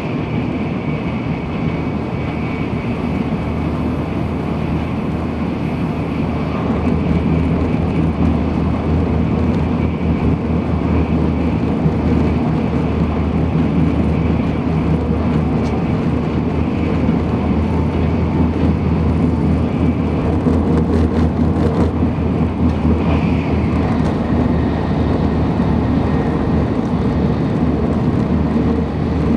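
Cabin noise inside a Tokaido Shinkansen Nozomi bullet train running at speed: a steady low rumble that grows a little louder several seconds in.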